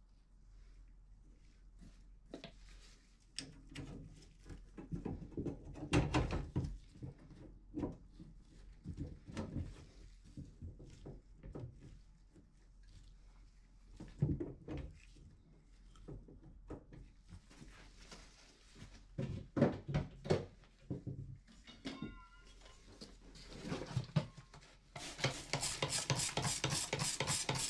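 Knocks, clunks and scrapes of a brass shower valve body and copper pipe fittings being handled and fitted together, with a brief squeak about three-quarters of the way through. Near the end, a hand trigger spray bottle of water is squirted rapidly over and over.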